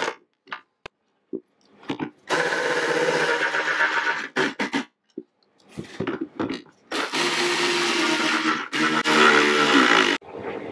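Milwaukee cordless right-angle driver with a socket running in bursts, driving screws: a few short trigger blips, then three longer runs of about one and a half to two seconds each.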